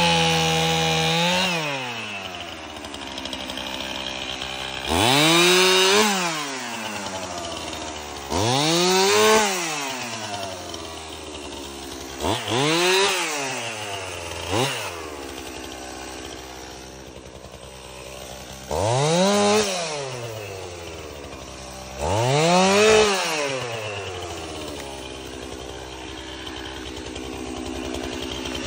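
Stihl two-stroke chainsaw cutting pine limbs: held at full throttle for the first second or so, then dropping to idle and revved up about six times in short bursts of a second or two, each rising and then falling in pitch, with idling in between.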